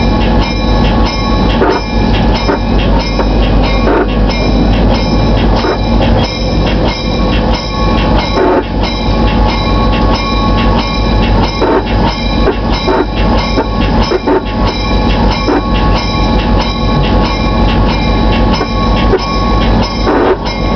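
A moving train heard from inside a locomotive cab: loud, continuous rumbling running noise with steady tones over it and scattered short knocks from the wheels on the rails as it crosses a trestle and rolls on down the track.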